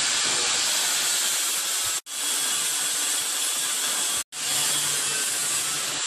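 Chili powder masala mixer machine running with a steady, loud hissing rush. The sound cuts out abruptly twice, about two seconds in and again about four seconds in, and comes straight back each time.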